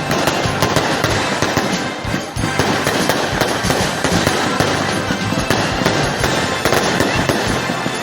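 Fireworks going off in a dense, continuous barrage of rapid crackles and bangs.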